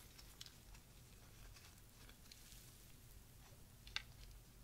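Faint, soft crackles and rustles of a moist chocolate chip muffin being squeezed and torn apart in gloved hands, with one sharper crackle about four seconds in.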